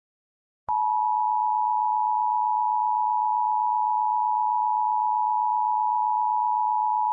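Emergency Alert System attention signal: two steady tones sounded together, starting sharply after a short silence less than a second in. It signals that an emergency alert message follows, here a severe thunderstorm warning.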